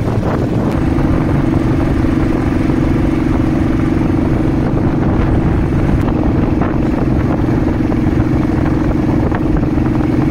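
Royal Enfield motorcycle engine running at a steady cruising pitch while riding, with a low rumble underneath.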